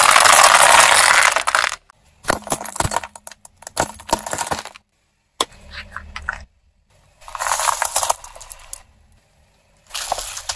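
A car tyre rolling over and crushing small plastic objects and candy, in about five separate short bursts of crackling, snapping and clinking with brief silences between them. The first burst, a dense crackle lasting under two seconds, is the loudest.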